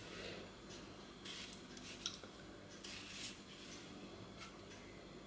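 Faint, scattered clinks and soft scrapes of a kitchen knife and pear slices against a plate and a metal cake tin as sliced pears are laid onto cake batter; the sharpest click comes about two seconds in.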